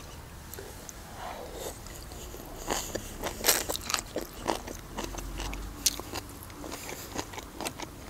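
A person chewing a mouthful of crunchy shredded carrot salad close to the microphone, a run of short crunches that thickens after a couple of seconds.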